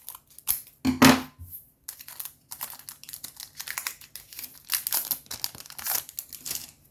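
Foil Pokémon booster pack wrapper being torn open and crinkled by hand: a dense run of crackling, rustling tears lasting several seconds, with a brief louder sound about a second in.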